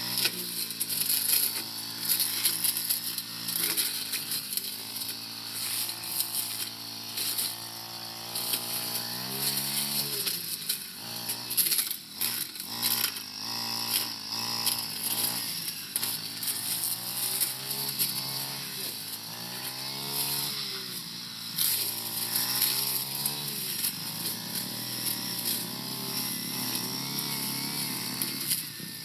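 Four-stroke brush cutter engine running while cutting tall grass and brush, its revs rising and falling several times.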